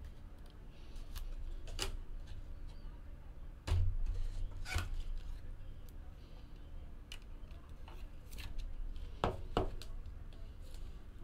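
Trading cards and rigid plastic card holders being handled on a tabletop: scattered light clicks and taps, with louder knocks about four seconds in and a quick pair about nine and a half seconds in.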